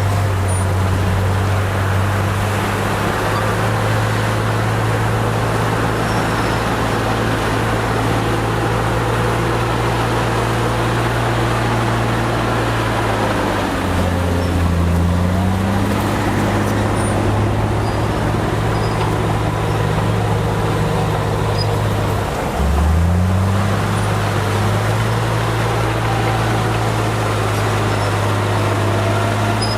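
Bulldozer's diesel engine running steadily. Its pitch sags and recovers about halfway through, then drops sharply and climbs back about three-quarters of the way in.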